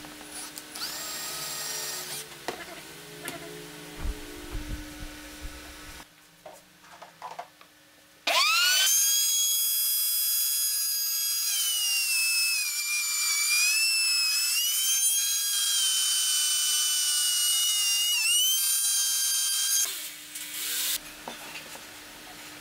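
A cordless drill runs briefly, boring through a wooden board. Then a table saw starts with a fast rising whine and runs for about eleven seconds, its pitch dipping now and then as it cuts, before it stops.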